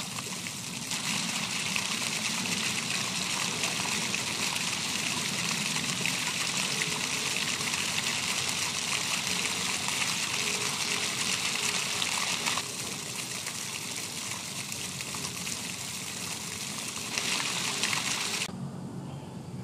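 Steady rushing of running water, a constant hiss with no rhythm. It drops abruptly in level about two-thirds of the way through, swells briefly again, then falls back near the end.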